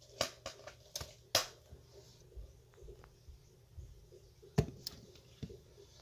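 Metal tweezers clicking and tapping against a clear plastic tub: several sharp taps in the first second and a half, then a few more near the end, over a faint steady hum.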